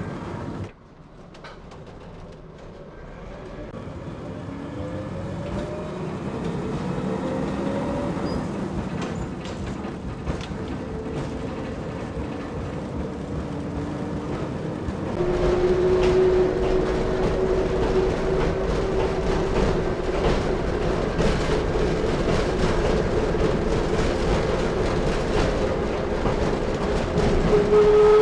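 Kiha 10 railbus running along the track: its diesel engine note rises, with wheels clicking over the rail joints. About halfway through the sound jumps louder into a steady engine drone that slowly climbs in pitch.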